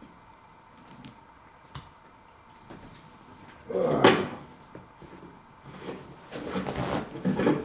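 Paper towel being pulled off a kitchen-roll stand and torn: a loud brief tearing sound about four seconds in, then a couple of seconds of rustling and tearing paper near the end.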